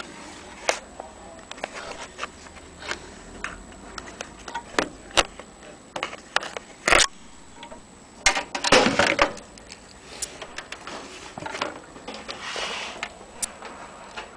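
Handling noise: irregular clicks, taps and short rustles, with the loudest rustling about seven to nine and a half seconds in.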